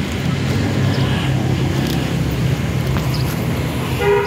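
A steady low engine drone, with a brief high pitched tone just before the end.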